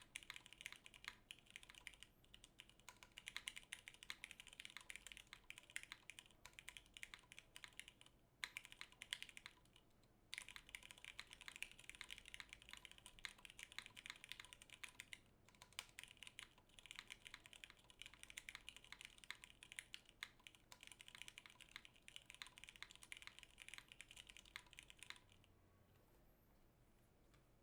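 Fast, continuous typing on a mechanical keyboard with stock Hyperglide Cherry MX Black linear switches in a top-mount polycarbonate plate, under CRP R4 keycaps. It pauses briefly a few times and stops near the end.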